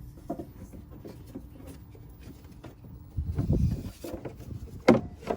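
Handling noises from working a new accessory belt onto the engine's bottom pulley: scattered scuffs and light clicks, a louder low rumbling scrape a little past halfway, and a sharp knock near the end.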